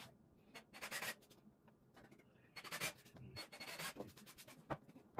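A few short rubbing and scraping strokes of hands sliding over pine boards and the boards shifting against each other. The cordless drill is not running.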